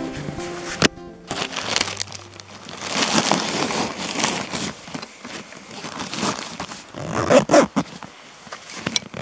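Acoustic guitar music fades out about a second in. After that, rustling and crinkling of backpack fabric comes in uneven bursts as gear is dug out of the packs, with a louder bout of handling noise near the end.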